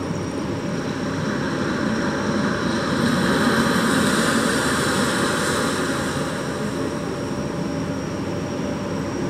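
A steady low rushing rumble played over loudspeakers, swelling between about three and six seconds in, as the performance's opening soundscape.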